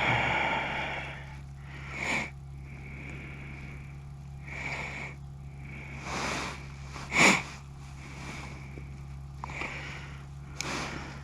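A person sniffing and breathing through the nose, about seven short noisy breaths with the loudest about seven seconds in, over a steady low hum.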